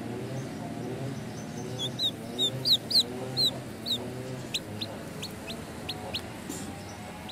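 Chick peeping: a run of about eight loud, high-pitched peeps, followed by a quicker series of shorter, thinner peeps.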